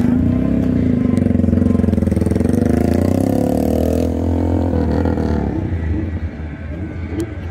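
1967 Pontiac Firebird's engine revved and held at speed, its pitch climbing for about three seconds, then falling back to idle around four to five seconds in.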